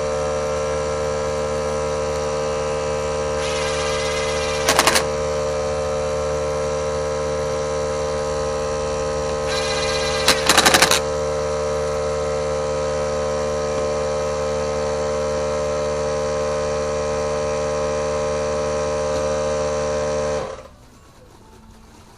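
Briggs & Stratton mower engine running at a steady speed, with two brief louder bursts, then shutting off abruptly near the end.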